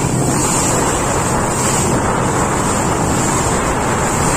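Speedboat under way: a loud, steady rush of wind buffeting the microphone and water against the hull, with the boat's motor running beneath it.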